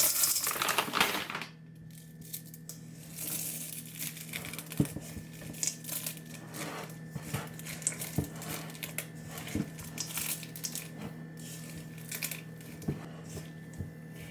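M&M candies poured rattling into a mixing bowl for the first second and a half, then a spatula folding them into thick cookie dough: soft scraping with scattered clicks of candy and utensil against the bowl.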